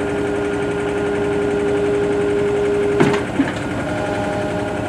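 Heavy machine engine running steadily. About three seconds in there is a short clunk, and a second later the engine settles into a higher steady note.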